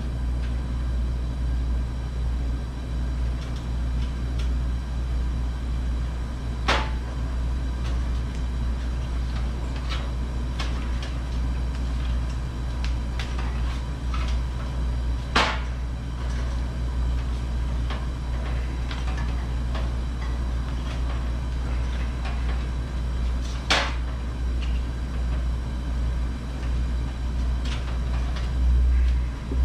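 A steady low hum throughout, with three sharp clicks several seconds apart and a few fainter taps as vinyl tubing is worked by hand onto the pipes of a heater core and valve.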